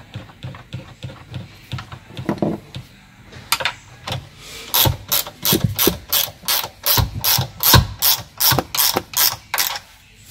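10 mm ratcheting ring spanner clicking as it tightens the fitting on a T-bolt, at about three clicks a second through the second half. Before that come faint metal ticks of the fitting being turned by hand.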